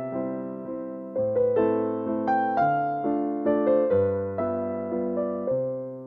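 Background music: a gentle piano melody of struck notes that ring and fade, over a slow bass line.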